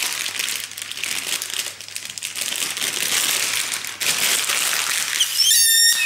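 Plastic multipack bag of fun-size Mars bars crinkling and rustling as it is handled and rummaged through. Near the end there is a brief high-pitched squeal, the loudest sound in the stretch.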